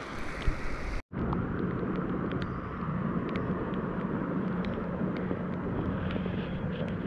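Steady outdoor background noise with a low hum, like distant traffic or an engine, and scattered faint ticks. There is one sharp knock about half a second in and a brief total dropout just after one second.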